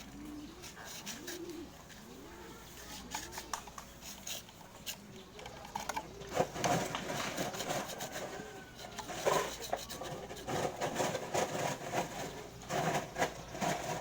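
A dove cooing: a series of low coos, each rising and falling, about once a second. From about halfway, sharper clicks and clatter grow louder and become the loudest sounds.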